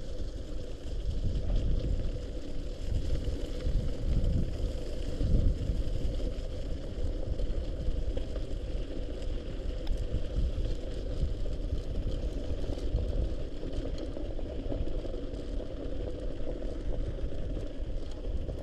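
Mountain bike riding through slushy snow on a gravel trail: tyres rolling and splashing through slush, with wind rumbling over the microphone and a faint steady hum.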